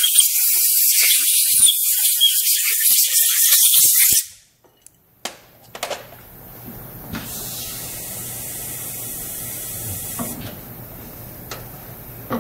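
Steady hiss of compressed air on the seat-and-guide machine that cuts off suddenly about four seconds in. It is followed by a few clicks and a quieter, steady low hum from the machine.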